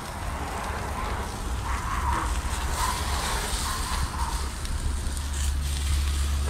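Fried eggs, sausages and green peppers sizzling on a gas grill's griddle plate and grates, a steady crackling hiss over a constant low rumble.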